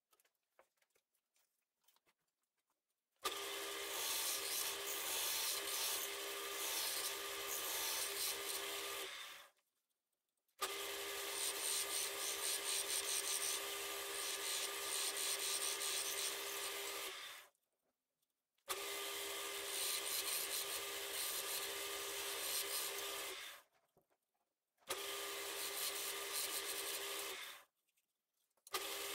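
Wood lathe running with a steady hum while the spinning wood is rubbed and scraped by hand. The noise comes in several stretches of a few seconds each, each starting and stopping abruptly, after near silence for the first few seconds.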